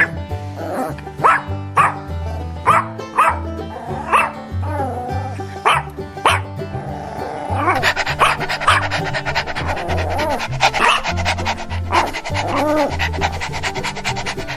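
A dog barking again and again over background music with a steady bass line.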